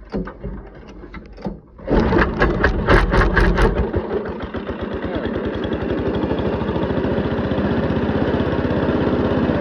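Small Robin engine on a wood chipper being pull-started with no choke: it catches about two seconds in, runs rough and uneven for a couple of seconds, then settles into a steady run.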